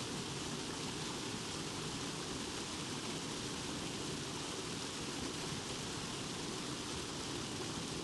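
Waterfall sound effect: a steady rush of falling water.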